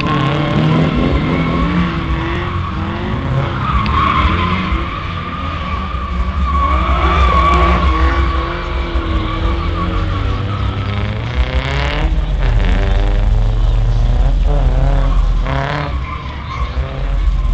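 Drift car sliding through a cone course, its engine revving up and down again and again while the tyres squeal, loudest about four seconds in and again around the middle.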